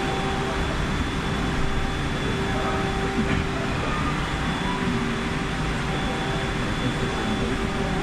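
Steady mechanical hum: a few constant tones over an even low rumble and hiss.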